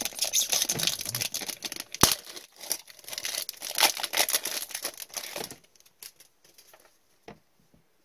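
Trading-card pack wrapper crinkling and tearing open, with a sharp snap about two seconds in; the crinkling stops about five and a half seconds in, leaving a few faint taps.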